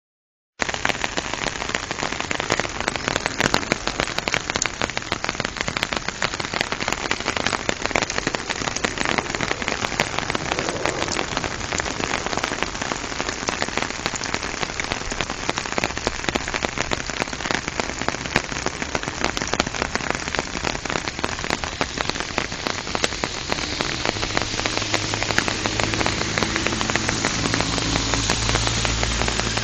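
Steady rain falling on a wet road and pavement, thick with close raindrop ticks. The sound cuts out for about half a second at the start, and a low steady hum joins in during the last few seconds.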